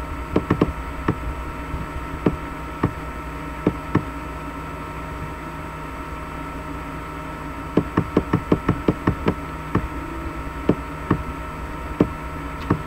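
Computer keyboard and mouse clicks. There are scattered single clicks, then a quick run of about a dozen around eight seconds in, over a steady electrical hum.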